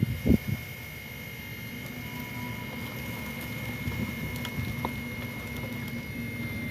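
Drive motors and gearboxes of a radio-controlled Volvo EC480D excavator model whirring steadily as it crawls on its tracks across a trailer deck, with a couple of thumps near the start.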